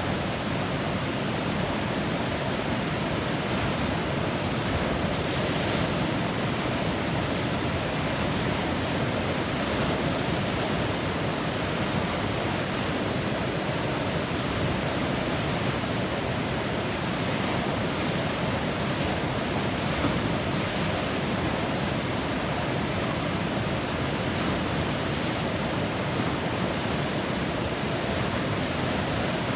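Steady rush of a large river rapid: whitewater churning and breaking through a standing wave.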